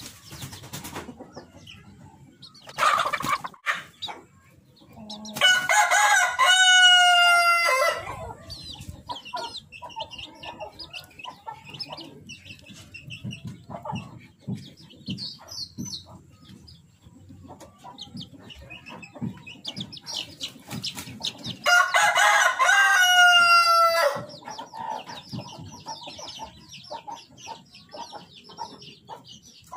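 White rooster crowing twice, each crow a long cock-a-doodle-doo of about two and a half seconds ending in a drawn-out falling note, the first about five seconds in and the second about twenty-two seconds in. Wings flap near the start, and softer chicken clucking comes between the crows.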